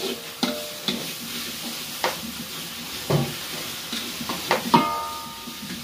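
Food sizzling in a large metal wok as a spatula stirs it, scraping and knocking against the pan several times; one knock near the end rings briefly.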